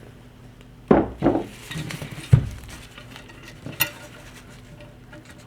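Steel rifle parts of a Mosin-Nagant clinking and scraping as the trigger is lined up and its pin pushed in, with a dull knock about two seconds in and a sharp click near four seconds.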